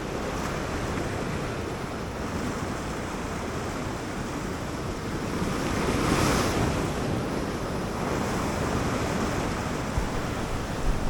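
Sea surf washing over a rocky shoreline, a steady rush of water with one wave swelling louder about six seconds in. Wind noise on the microphone adds a low rumble underneath.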